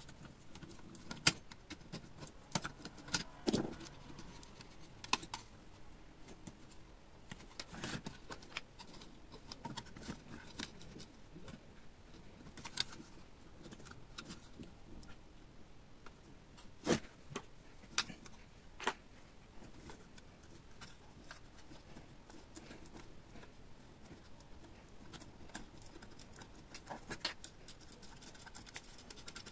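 Scattered clicks, taps and light knocks of a screwdriver and hands working on the plastic housing and front panel of a small inverter welding machine, with the sharpest knock about 17 seconds in.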